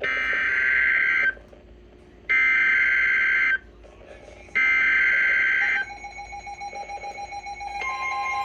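Emergency Alert System tornado warning on NOAA Weather Radio: three harsh, buzzing bursts of SAME header data tones, each a little over a second long with a second's pause between them, which encode the warning. About six seconds in, a pulsing alarm tone begins, and the alarm grows fuller near the end.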